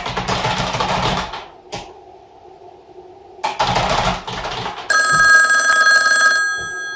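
Computer keyboard typing in two short bursts, then a mobile phone starts ringing about five seconds in: a steady electronic ringtone of several held tones, the loudest sound here.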